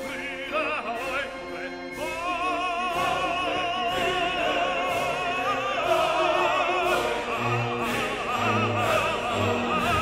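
Operatic singing with orchestral accompaniment: a singer with strong vibrato holding long notes, entering about two seconds in.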